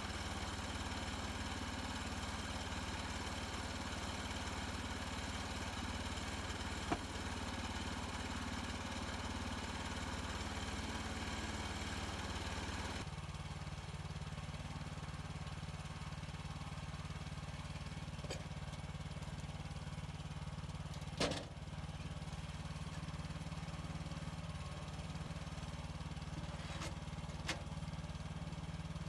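Portable bandsaw sawmill's gasoline engine running steadily while milling pine. About thirteen seconds in the higher-pitched noise drops away and the engine hum carries on. A few short knocks are heard, the loudest about two-thirds of the way through.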